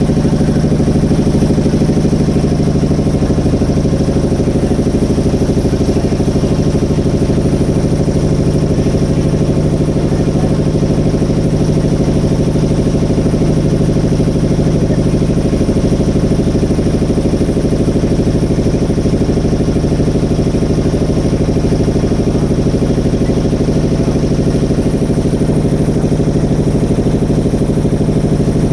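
A motorboat's engine running steadily at an even, unchanging pitch, heard from on board.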